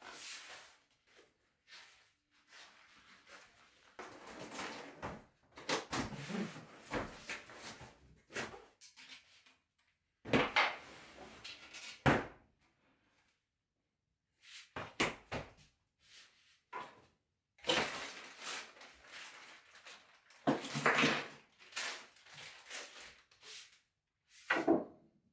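Flat-pack cabinet panels and cardboard packaging being handled: irregular rustling and scraping, broken by several sharp knocks as panels are set down on a table.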